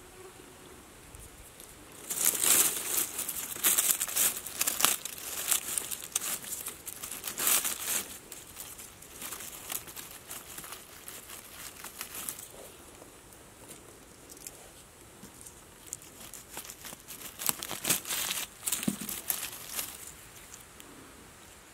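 Dry leaves and twigs rustling and crackling as a hand pushes through undergrowth to pick mushrooms, in dense bursts from about two seconds in to eight, then again near the end.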